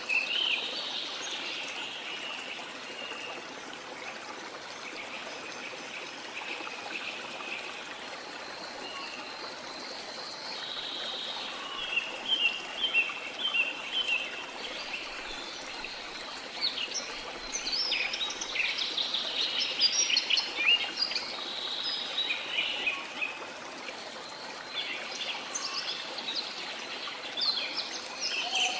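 Steady rush of falling and flowing water under many birds singing, with rapid chirps and trills that come and go, busiest in the middle and near the end.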